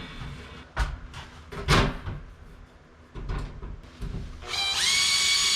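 A few knocks and clatters of things being handled, then about four and a half seconds in a power drill spins up with a rising whine and runs at a steady high pitch.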